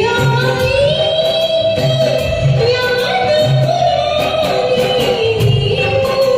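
Hindi song performance: a long, held melody line that glides slowly up and down, over bass notes and a steady percussive beat.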